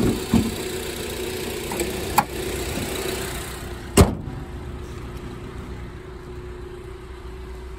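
Car hood being closed: a couple of small clicks as the prop rod is stowed in its clip, then the hood slams shut about four seconds in, the loudest sound. A steady low hum runs underneath.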